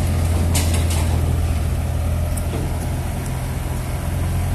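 Yanmar crawler combine harvester's diesel engine running steadily with a deep hum as the machine moves on its tracks, with a short clatter about half a second in.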